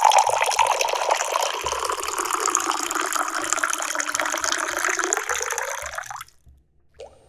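A stream of tea pouring into a fairness pitcher, steady for about six seconds, then thinning out and stopping. A single drip plinks into the tea about a second later.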